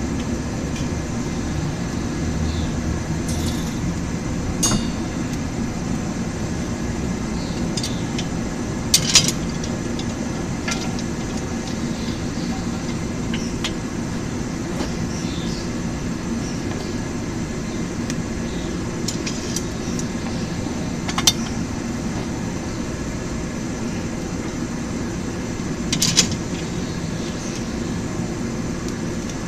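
Blacksmith's forge running with a steady roar while steel heats in it, with a few sharp metallic clinks now and then.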